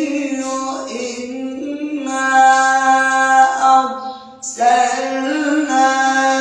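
A man's solo unaccompanied Quran recitation in the melodic mujawwad style, with long ornamented held notes on drawn-out vowels. There is a short breath break a little past the middle, then the phrase resumes.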